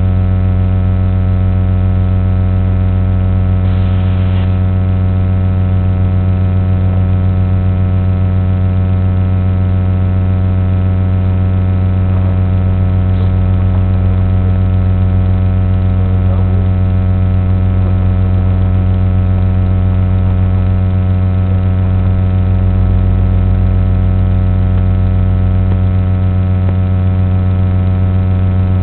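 Electric motor and propeller of an FPV flying wing running at a steady throttle, giving an even, unbroken drone.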